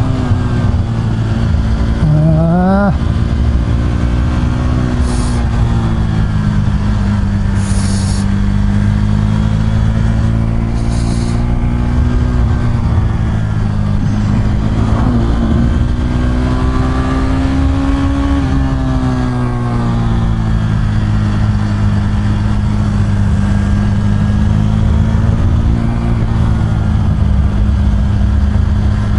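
KTM 390 Duke's single-cylinder engine running under way, its pitch rising and falling with the throttle through the bends. There is a quick rise in revs about two seconds in and a drop in revs near two-thirds of the way through.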